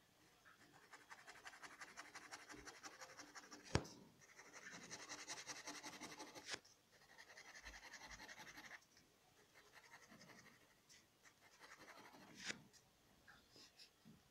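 Pen nib scratching on paper in quick runs of hatching strokes, with several pauses between runs. A few sharp taps cut in, the loudest about four seconds in.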